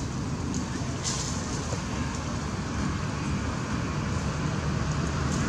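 Steady low rumbling background noise with a faint hiss above it and no distinct events.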